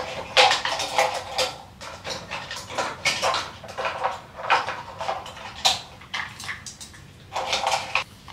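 Rummaging among small objects and packaging: irregular clattering and rustling, in quick uneven strokes.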